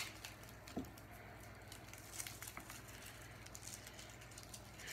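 Garlic cloves being peeled and picked apart by hand: faint papery crinkling and small ticks, with a sharp click at the start and a light knock about a second in.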